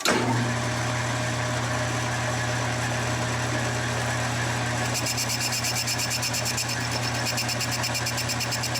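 Metal lathe running while a small chamfer is cut on the edge of a threaded nut plate: a steady motor hum, joined about halfway by a fast, even high-pitched ticking.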